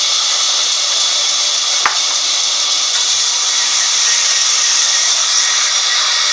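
Sawmill band saw ripping a wooden plank lengthwise: a steady, loud, hissing whir of the blade through the wood. A single sharp click comes about two seconds in.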